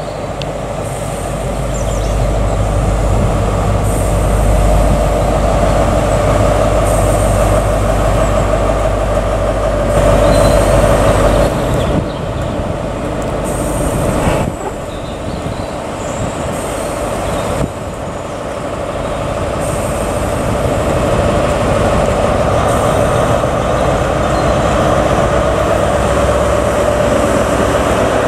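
Class 43 High Speed Train power car's diesel engine running at a steady note with the rumble of the train on the rails, growing louder over the first few seconds as it nears. About eleven seconds in the sound changes abruptly to a second Class 43 power car running close past.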